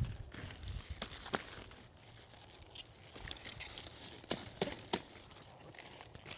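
Leaves being snapped and torn off garden plants by hand: a run of sharp snaps with leafy rustling between them.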